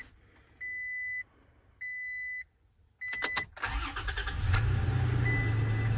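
Two dashboard chimes, then the key clicks and the Toyota Tacoma's 3.5-litre V6 cranks and starts about three and a half seconds in, settling into a steady idle. This is the first start after the oil change, with the engine freshly filled with oil.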